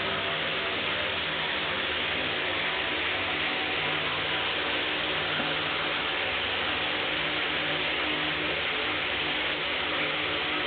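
Water spraying steadily from a running shower head, an even rushing hiss with no change in level.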